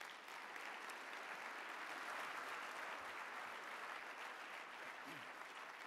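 Audience applauding, starting at once and dying away slowly near the end.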